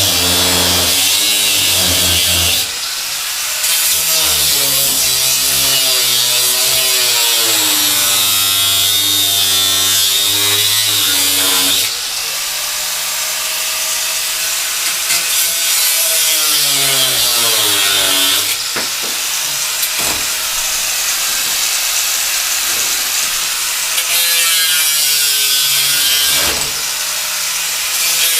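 Electric power tool cutting, its motor pitch dropping under load and picking back up over and over, with short breaks between cuts.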